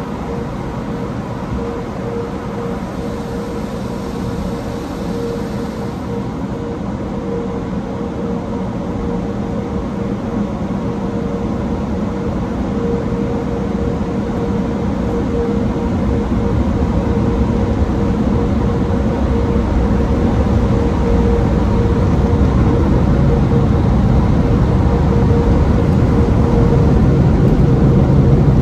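Car wash tunnel's overhead blower dryers running with a steady hum, growing gradually louder as the car moves in under them, heard from inside the car. Water sprays on the windshield at first.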